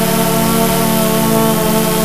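DJI Phantom 2 quadcopter's motors and propellers droning steadily in flight, a buzz of several held pitches, heard through the GoPro slung beneath it.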